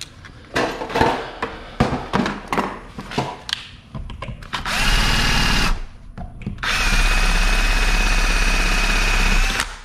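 Clattering handling knocks, then a cordless drill-driver running in two steady bursts, about one second and then about three seconds, with a faint whine, turning the screws of a wall cover plate.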